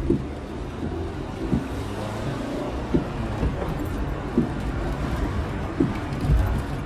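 Fiat city car cabin with the window open: a steady low engine rumble and outside traffic noise. Over it, the windscreen wiper sweeps with a soft thump about every one and a half seconds.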